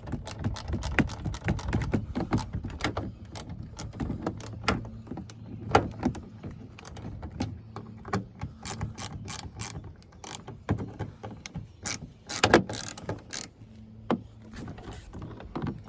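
Ratchet wrench clicking in runs of quick strokes as the side mirror's mounting bolts are screwed back in, with a few louder clicks near the end. A faint steady low hum runs underneath.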